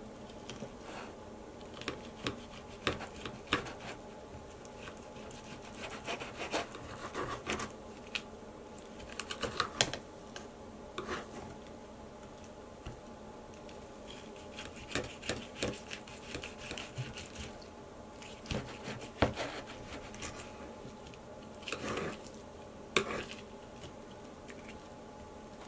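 Serrated steak knife sawing through a seared striploin steak, with the knife and fork clicking and scraping against a ceramic plate in irregular bursts and a few sharper clinks.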